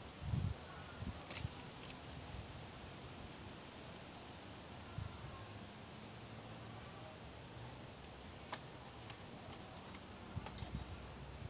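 Faint outdoor background with a steady high-pitched hum, and a few soft low thumps and scattered light clicks from hands handling a paper leaflet and things on a wooden table.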